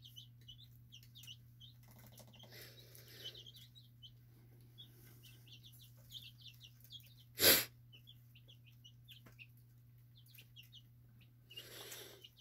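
Faint, repeated short bird chirps, high-pitched, over a steady low hum, with one short loud noise about halfway through.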